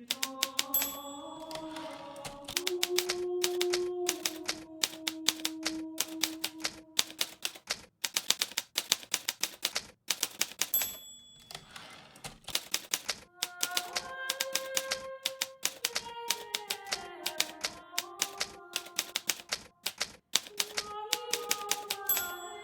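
Hermes Baby portable typewriter being typed on: rapid, irregular key strikes with short pauses. Its margin bell gives a brief high ding about a second in, again midway and near the end. Soft sustained tones glide slowly underneath.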